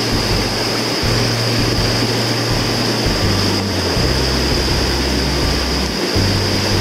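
Fast, shallow stream riffles rushing over rocks: a steady loud rush of water, with an uneven low rumble underneath.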